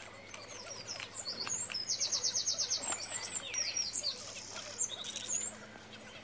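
Small birds chirping, with a fast, high trill of about ten notes a second some two seconds in and short rising and falling chirps around it, dying away near the end.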